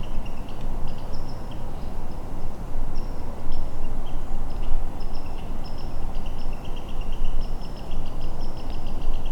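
Insects chirping steadily in fast pulsing trills, over a low rumbling noise.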